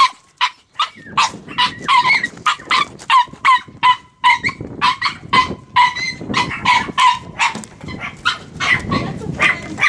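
A small dog barking rapidly and without a break, short sharp yaps coming two to three a second.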